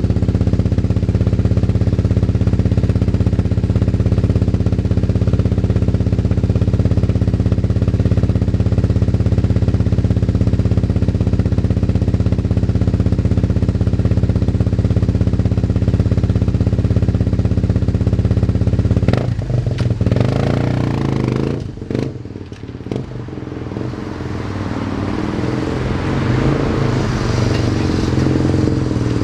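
Yamaha TT250R's single-cylinder four-stroke engine idling steadily through an aftermarket OZ Works silencer. About two-thirds of the way in there are a few knocks, the engine sound drops away for a couple of seconds, and then it builds up again.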